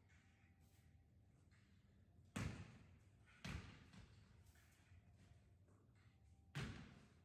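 Three dull thuds, echoing in a large hall: one a couple of seconds in, another a second later, and a third near the end, over otherwise near-silent room tone.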